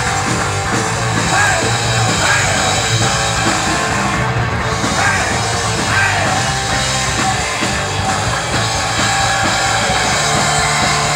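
Loud punk rock music with a driving drum beat and guitar, playing steadily.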